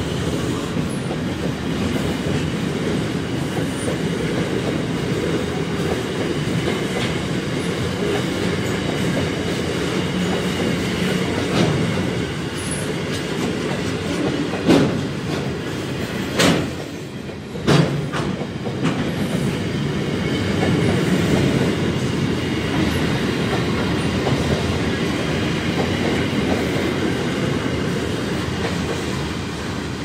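Freight train of empty flat wagons rolling steadily past, its wheels running on the rails. Three sharp knocks about halfway through.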